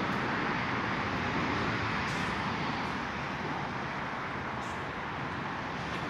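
Mercedes E63 AMG S's twin-turbo V8 idling steadily at its exhaust tips, with no revving.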